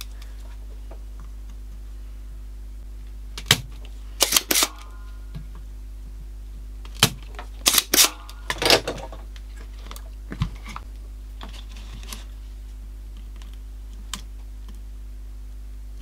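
Scattered light clicks and knocks of hands handling small tools and a transistor radio chassis on a rubber workbench mat, in a few quick clusters with pauses between, over a steady low hum.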